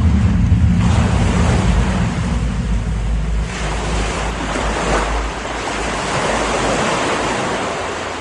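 Ocean surf: a steady rushing of waves with a low rumble, swelling and easing in several surges, beginning to fade near the end.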